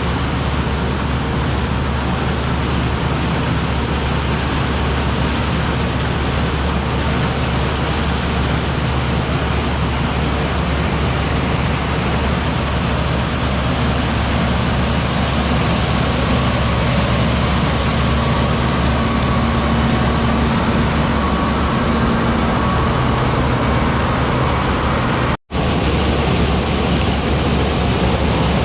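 Farm machinery engine running steadily under a constant noisy drone, with a steady low hum throughout. The sound cuts out completely for an instant near the end.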